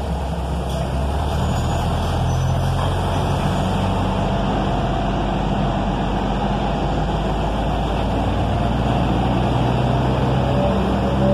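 Diesel engine of a subway work train running steadily, its low note shifting up about two seconds in and again near the end as the train of dead R32 cars being towed starts to pull out.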